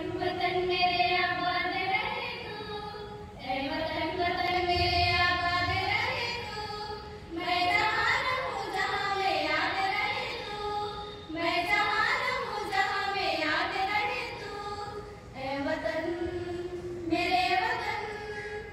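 A group of female voices singing a Hindi patriotic song together in unison, in sustained phrases of a few seconds each with short breaths between them.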